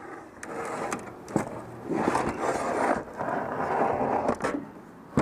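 Scraping and shuffling of objects being moved about, in several passes about a second long each, with a few sharp knocks.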